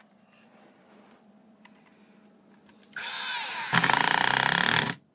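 Hammerhead HCID120 12-volt cordless impact driver driving a screw into a wood board. About three seconds in the motor spins up with a rising whine. Then it runs loudly under load for just over a second and stops.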